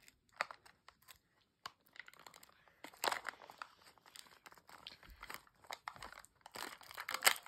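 Foil tabs being picked and peeled off a plastic Mini Brands toy capsule: irregular crinkling and crackling, loudest near the end.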